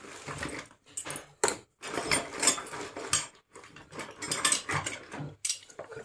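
Irregular clicking, scraping and clinking of metal hand tools being handled, with one sharp click about a second and a half in.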